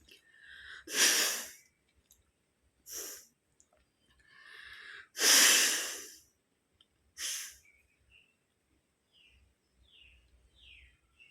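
A woman sneezing deliberately, the sneezes brought on by tickling her nose. There are two loud sneezes, each after a brief rising "ah" build-up. A shorter, quieter sneezing burst follows each one.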